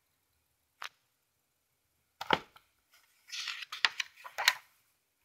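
Handling noise on a tabletop: a single click, a sharp knock a little after two seconds in, then a short rustling scrape with a few more clicks.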